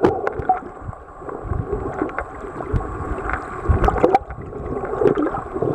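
Muffled underwater water noise picked up by a submerged camera: uneven sloshing and gurgling swells, with several sharp clicks.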